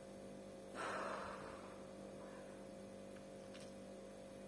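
A short audible breath about a second in, over a faint steady electrical hum.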